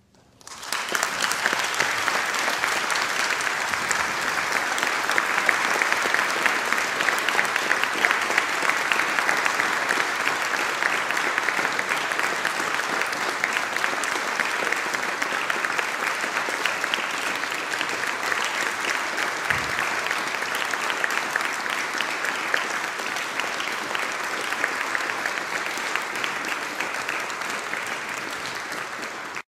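Concert audience applauding, breaking out about half a second in after the music has ended, then holding a steady pitch of clapping until it cuts off abruptly.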